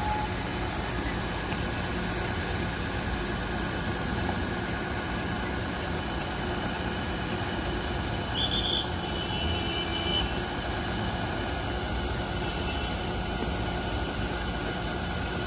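Vehicle engines running in slow traffic, a steady rumble. A brief high-pitched sound comes about eight seconds in.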